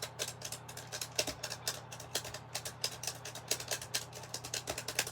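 Keypad buttons on a Snoopy novelty telephone pressed one after another: a rapid, irregular run of sharp clicks, several a second.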